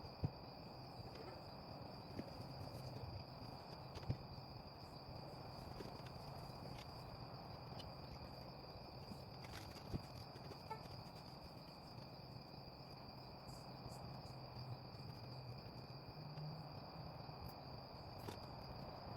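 Crickets trilling steadily and faintly over a low hum, with a few sharp clicks and taps from handling.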